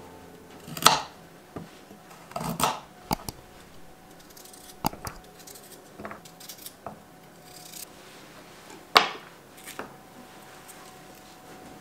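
Kitchen knife cutting a carrot on a wooden cutting board: a handful of separate sharp chops and knocks, a second or more apart, the loudest about nine seconds in.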